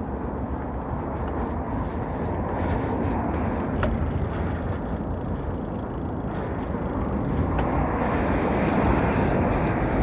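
A mountain bike being ridden, heard from a camera strung on the rider's chest: steady wind buffeting and tyre rumble on the trail, with a few light rattles, growing louder near the end.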